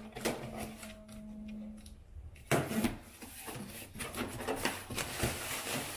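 Cardboard shipping box being opened by hand: its tape and flaps scrape and rustle, and there is a close run of crackling and scraping from about two and a half seconds in as the flaps are pulled back and the contents are handled.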